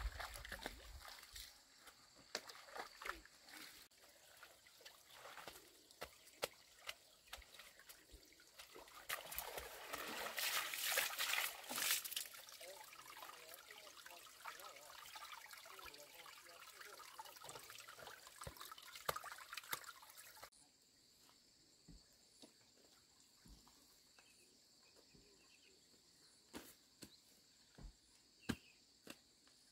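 Water trickling and sloshing as laundry is rinsed by hand in a shallow stream, with louder splashing about ten seconds in. It turns quieter about two-thirds of the way through, leaving a few small knocks and clicks.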